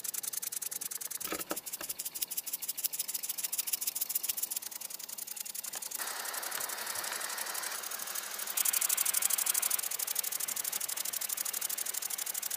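Small brass-and-steel model steam engine (ENJOMOR vertical single-cylinder kit) running fast on steam from its spherical boiler: a rapid, even chuffing and ticking of exhaust puffs and moving parts over a hiss. A couple of knocks about a second and a half in.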